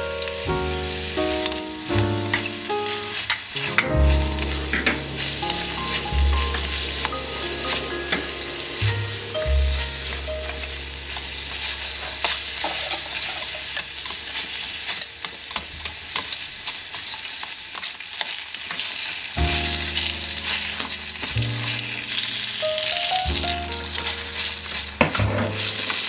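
Battered tempura pieces frying in hot oil in a miniature pan: a steady sizzle with many small crackles and clicks. Background music with a bass line plays over it for the first ten seconds, drops out in the middle and returns for the last several seconds.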